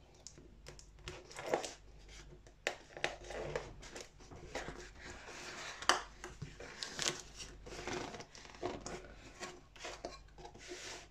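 Cardboard webcam box being opened by hand: the seal tab picked and torn, the inner box slid out of its sleeve and the lid flap lifted, making scattered taps, scrapes and rustles. The sharpest snap comes about six seconds in.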